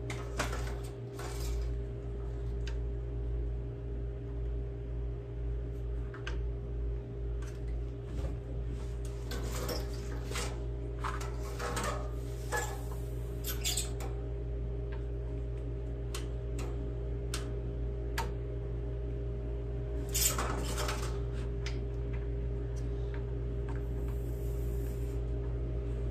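Clicks, knocks and rattles of a plastic air-cleaner housing and its parts being handled and fitted onto a Briggs & Stratton engine's carburetor, in a few short clusters, over a steady background hum.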